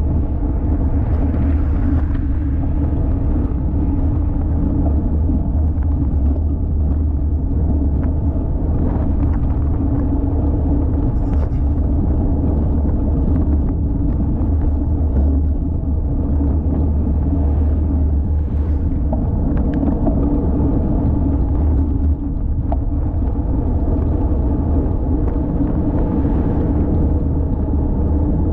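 Steady low rumble of wind buffeting a GoPro Hero 5 Session's microphone on a moving road bicycle.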